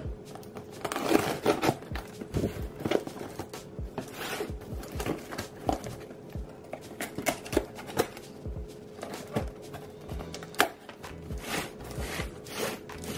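Folding pocket knife slicing clear packing tape on a cardboard box: a run of short scratches, crackles and taps as the blade cuts along the tape and knocks on the cardboard.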